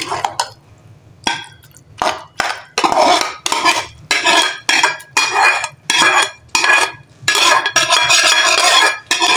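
Metal ladle scraping and clanking against metal cookware while urad dal (mash ki daal) is stirred in an aluminium pot. The strokes are sparse at first, come about two a second from about three seconds in, and run almost together near the end.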